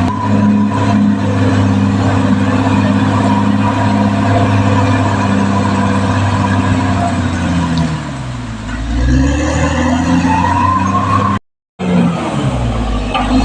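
Caterpillar D6R XL bulldozer's diesel engine running under load, its pitch dipping and then climbing back up about eight to ten seconds in. The sound cuts out for a moment near the end.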